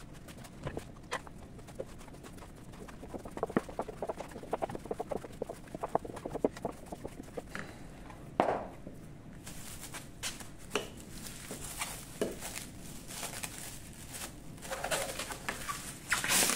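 Hands kneading sticky biscuit dough in a bowl, with soft squishes and clicks. From about halfway through, plastic cling film crinkles as the dough is wrapped, loudest near the end.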